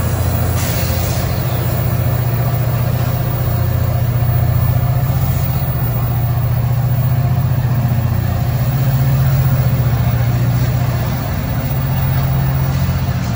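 Metra EMD F59PHI diesel locomotive running under power, a steady low engine drone, as it pushes its train away from the platform.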